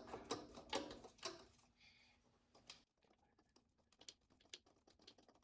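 Faint metallic clicking of hand tools on the throttle body mounting bolts: a few evenly spaced clicks, about two a second, in the first second and a half, then scattered quieter ticks and handling noise.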